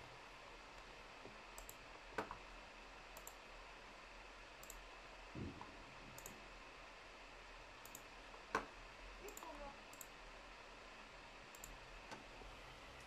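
Near silence: quiet room tone with a few faint, scattered clicks and one soft knock. The sharpest click comes about two-thirds of the way through.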